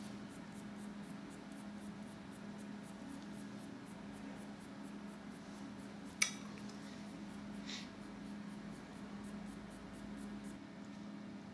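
Faint strokes of a charcoal-loaded paper tortillon rubbing on drawing paper, over a steady low hum. One sharp click comes about six seconds in.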